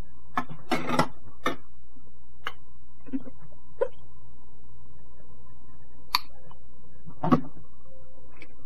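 A metal spoon tapping and knocking against a nonstick pan as miso and chopped garlic are spooned onto raw minced pork: scattered single taps, a quick cluster about a second in and the loudest knock near the end, over a steady hum.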